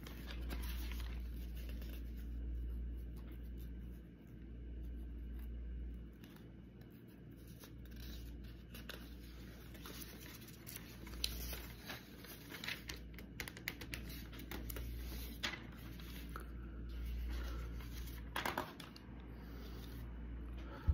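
Rustling and scratching handling noise with scattered small clicks over a low rumble. The clicks come thicker in the second half, with a louder cluster near the end.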